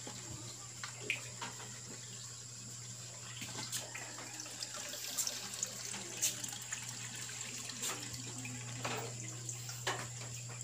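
Aquarium water splashing and trickling as a plastic cup is dipped into the tank to scoop water, in scattered small splashes over a steady low hum.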